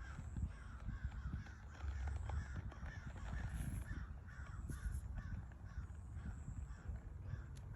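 Birds calling over and over in short calls, several a second, over a steady low rumble.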